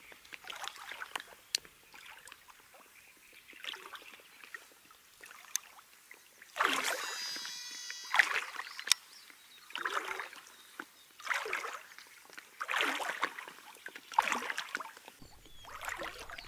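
Water sloshing and splashing around a belly boat in repeated swishes, roughly one every one to two seconds.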